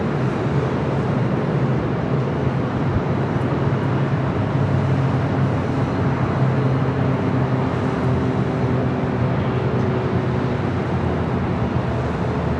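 Steady, continuous roar of jet aircraft engines at a busy airport, with a faint engine tone that comes in partway through and fades near the end.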